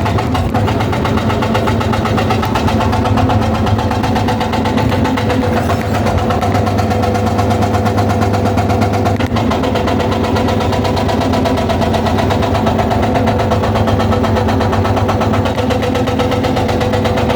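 Excavator-mounted hydraulic breaker hammering stone in a rapid, steady rhythm, over the excavator's engine running under load.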